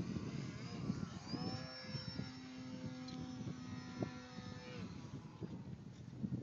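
Radio-controlled Sukhoi aerobatic model plane's motor, heard over a low rumble: its whine rises about a second in, holds a steady pitch for about three seconds, then drops and fades out.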